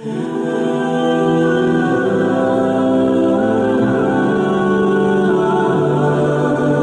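Background music of slow, sustained chords that change every second or two.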